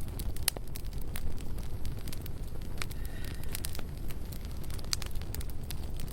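Wood campfire burning, with irregular sharp crackles and pops over a steady low rumble.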